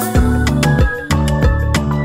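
Background music: held pitched notes over a regular drum beat.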